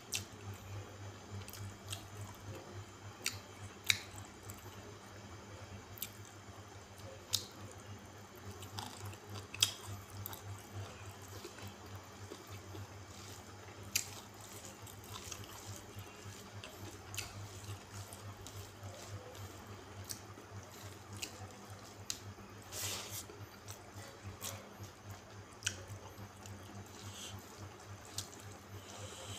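Close-up wet chewing and lip-smacking of a person eating rice and curry by hand, with sharp mouth smacks and clicks every second or two over a steady low hum.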